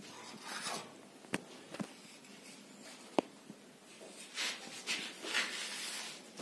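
Plastering trowel scraping over cement plaster in a run of short strokes, with a few sharp taps earlier on.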